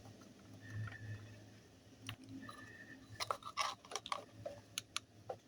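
Sharp clicks and small knocks of hand work on a four-stroke grass cutter engine, starting about three seconds in, as its oil is being changed; before that only a faint low hum.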